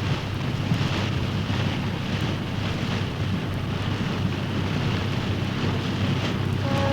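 Old sound-effect recording of a steady rushing, wind-like noise over a low rumble. A faint steady pitched tone comes in just at the end.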